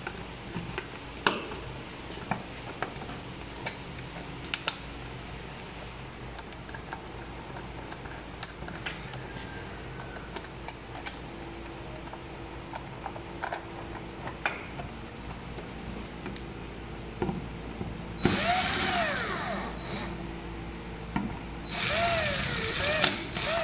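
Stanley cordless drill driving screws into a plastic lamp holder, its motor whining twice near the end with the pitch rising and falling as the trigger is squeezed and let off. Before that, small clicks and taps of plastic parts being handled and fitted.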